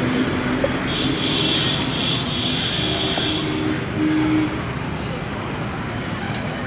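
A hot forged steel billhook blade being quenched: water poured from a tin can over the blade hisses into steam and splashes into a water trough.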